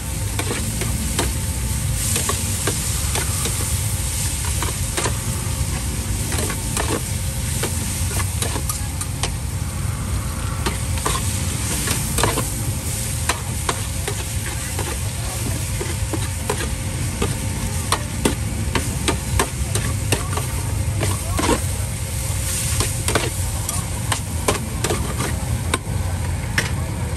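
Food sizzling in a pan, with a utensil stirring and repeatedly clicking and scraping against it, over a steady low rumble of background noise.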